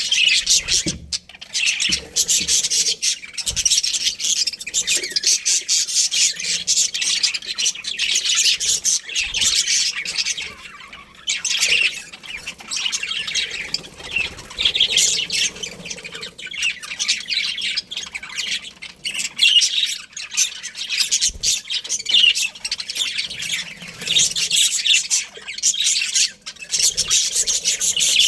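Budgerigars chirping and chattering without a break, a dense stream of rapid, high warbling notes.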